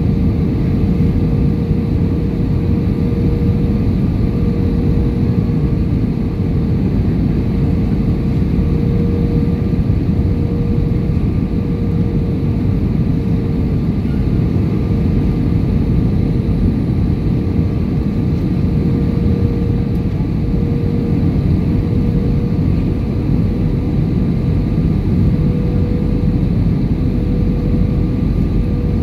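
Airbus A320-200 cabin noise from a window seat over the wing during descent on approach: a loud, steady roar of the jet engines and rushing air, with a constant mid-pitched drone and a fainter higher tone running through it.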